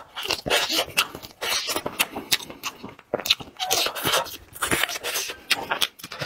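Chewing, sucking and lip-smacking as a braised chicken foot is bitten and gnawed, with many short, sharp wet clicks.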